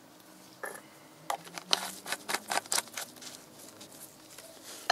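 Black plastic motor-oil bottle handled in gloved hands: a quick irregular run of clicks and taps, densest from about one and a half to three seconds in.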